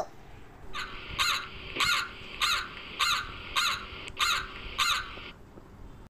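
Crow cawing: a series of about eight caws, evenly spaced a little over half a second apart.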